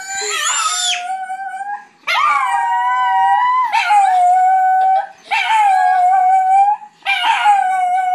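A chihuahua howling together with children who howl along: a run of long, steady-pitched howls, each a second or two with a quick rise at the start and short breaks between.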